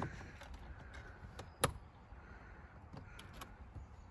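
Sharp metal clicks from a camper trailer's door latch and lock being worked by hand, the loudest click about a second and a half in, with a few lighter clicks later.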